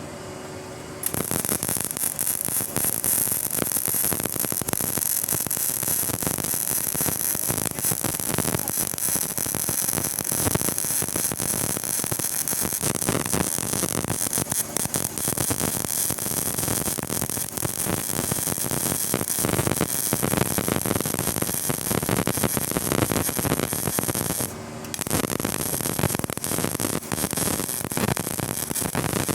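Welder crackling steadily while welding car body sheet metal, with a short break about a second in and another near the end.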